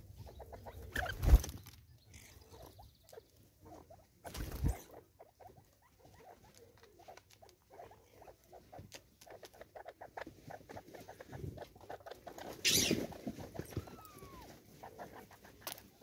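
Francolins pecking seed: a steady patter of small clicks and taps as their bills strike the seed, the plastic bottle feeder and the wooden stump. Two louder knocks come in the first five seconds, and a short rustling burst comes late on.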